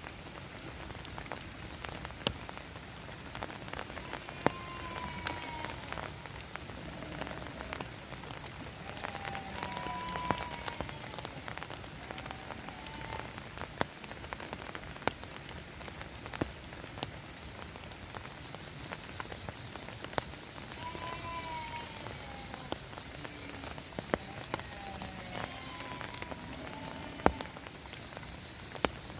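Steady rain falling, with individual heavier drops landing as sharp ticks on a nearby surface at irregular intervals.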